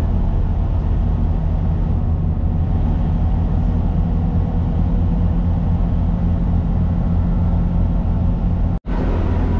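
Diesel engines of a GWR Class 166 diesel multiple unit running under power as the train pulls away from a station stop, heard from inside the carriage as a steady low rumble. The sound cuts out for a split second near the end.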